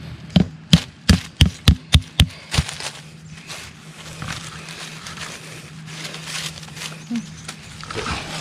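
A quick run of about eight sharp knocks over two seconds, fading toward the end, over a low steady hum.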